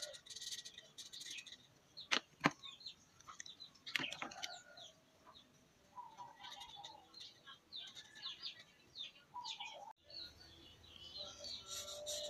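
Felt-tip markers rubbing and squeaking on paper as a drawing is coloured in, with a few sharp clicks about two and four seconds in.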